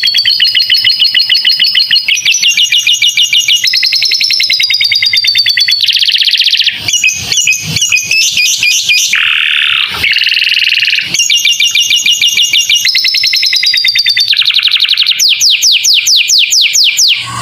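Domestic canary singing a long, unbroken song of rapid trills, switching to a new phrase every second or two. The song is filled in with harsher, lovebird-like phrases, the kind used as masteran, a recording for teaching other songbirds.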